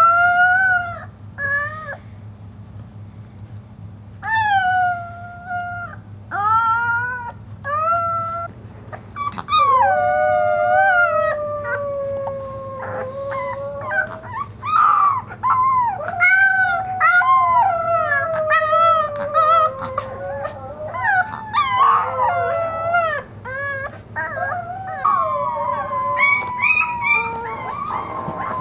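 Two-week-old Boxer puppy howling: short rising-and-falling howls with pauses between them at first, then from about nine seconds in, longer wavering howls that run on almost without a break.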